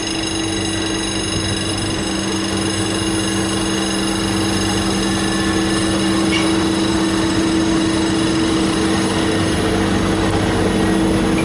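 A Y 8000 diesel shunting locomotive passes with its engine running steadily, hauling loaded steel-coil wagons that roll by after it. The sound grows slightly louder as the wagons go past.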